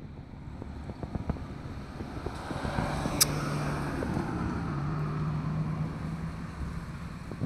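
A motor vehicle's low engine rumble with a steady low hum that grows louder in the middle and fades again, with wind on the microphone. One sharp click about three seconds in.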